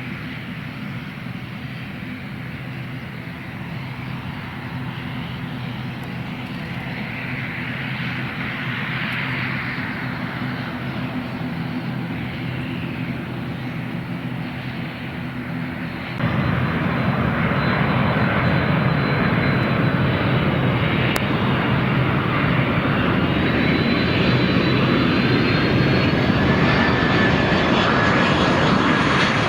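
Airliner engines running: a steady engine hum, then from about halfway an abrupt step to much louder engine noise, with high whines slowly rising in pitch.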